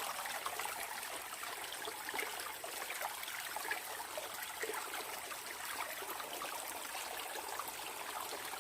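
A forest stream running over rocks, a steady trickling and splashing of water.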